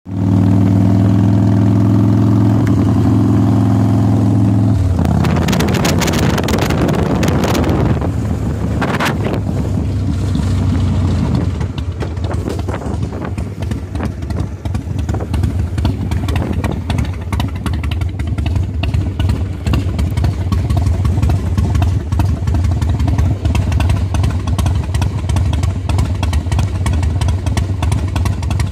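Motorcycle engine running while being ridden, a steady note at first, with a few seconds of wind rushing over the microphone about five seconds in, then a steady, slightly quieter engine note with road and wind noise.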